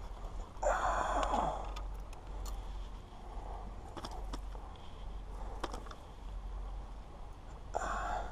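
A man's heavy sigh about a second in and another breath near the end, with a few light clicks and rustles as hands work among rocks and grass, over a steady low rumble.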